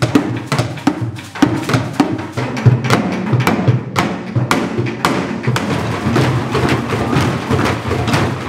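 Group percussion on plastic buckets, water jugs and jerrycans beaten with wooden sticks: many quick, uneven hollow knocks overlapping throughout.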